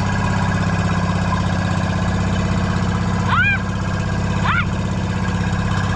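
Boat engine on a bangka running steadily with an even low throb. Two short high chirps cut through it about a second apart, near the middle.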